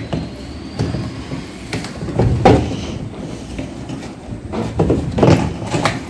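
Handling noise of wires and plastic parts: irregular knocks, clicks and rubbing against a washing machine's plastic top panel as the timer's wires are pushed into place, loudest about two and a half seconds in and again near the end.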